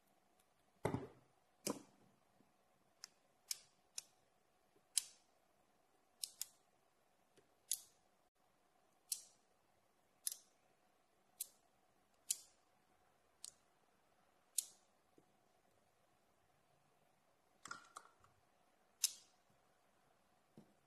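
Chrome magnetic rings snapping onto 17 mm steel balls as a magnetic ball-and-rod structure is assembled by hand: short, sharp metallic clicks, roughly one a second. The first two clicks, about a second in, are heavier and duller.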